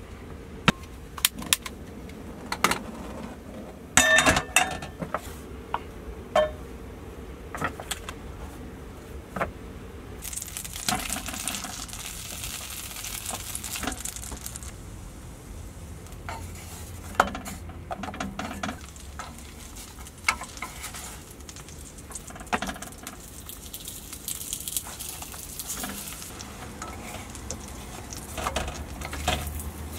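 Metal clanks and knocks as a frying pan is set on a gas hob and handled. About ten seconds in, hot oil starts sizzling as a burger bun is pressed face-down into the pan, with more knocks of handling.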